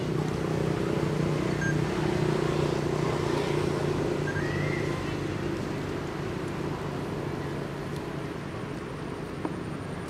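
A motor vehicle's engine running with a steady hum, loudest in the first few seconds and slowly fading away.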